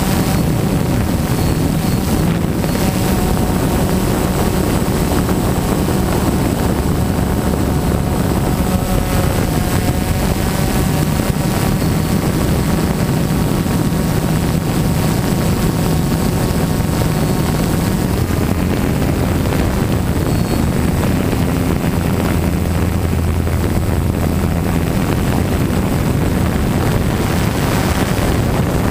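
DJI Phantom quadcopter's four motors and propellers running in flight, heard close up from the camera mounted on the drone: a loud, steady buzzing drone whose pitch drifts slightly up and down.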